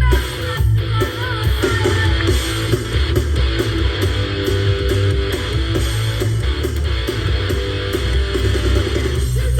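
Garage shock-rock band music: distorted electric guitar with bass and drums playing steadily, the vocals mixed far back.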